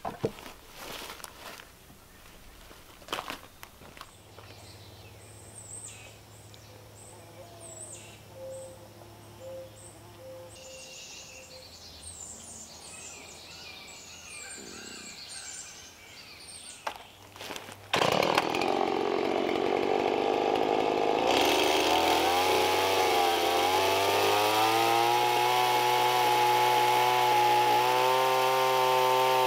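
A few knocks, then a quiet stretch with faint bird chirps. About two-thirds of the way in, a gasoline chainsaw starts suddenly and runs loudly for the rest of the time, its pitch climbing and then holding steady.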